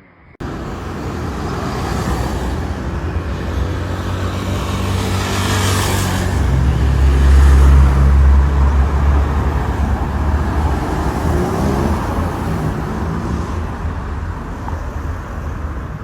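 Lamborghini Huracán STO's naturally aspirated 5.2-litre V10 running with a deep, loud rumble. It cuts in abruptly, swells to its loudest about halfway through and then eases off slowly.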